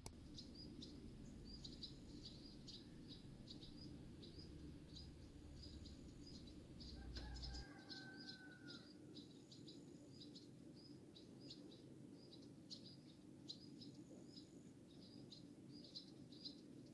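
Faint outdoor ambience of small birds chirping, a string of short high-pitched notes repeating irregularly over a low steady hiss, with one lower drawn-out call about seven seconds in.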